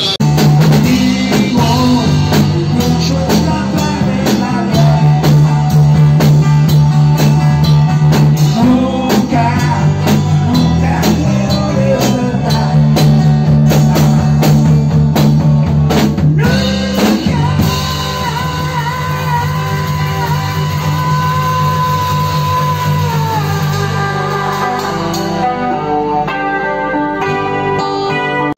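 A rock band playing live, with guitars, bass and a drum kit, and a man singing. About two thirds of the way in the music changes abruptly to another song.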